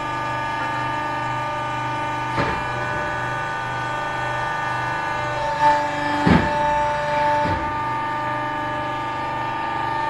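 Hydraulic hose crimping machine running with a steady hum while a hose fitting sits in its die head. A sharp click comes about two and a half seconds in. Two louder clunks follow past the middle, where the hum briefly changes tone.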